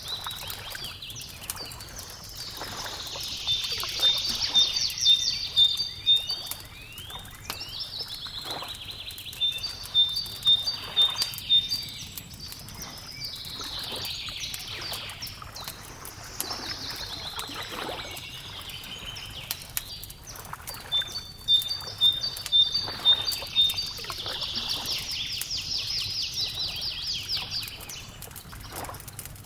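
Songbirds singing in recurring phrases of quick repeated chirps and trills, over a wood fire crackling steadily underneath.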